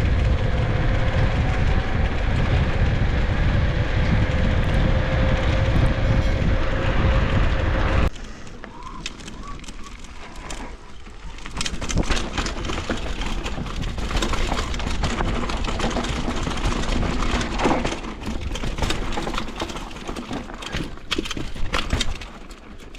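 Mountain bike being ridden on a dirt trail, heard from a GoPro. For about the first eight seconds there is heavy wind noise on the microphone with a faint steady whine. Then it changes abruptly to quieter tyre rolling with frequent clicks and rattles from the bike.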